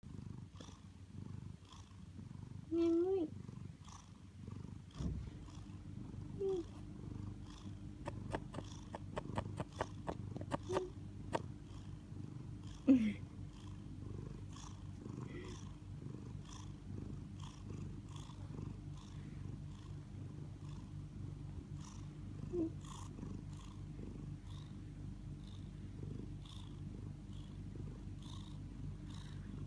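Domestic ginger-and-white cat purring steadily and close up, a continuous low pulsing hum. A few brief higher sounds and a run of quick clicks a third of the way in break over the purr.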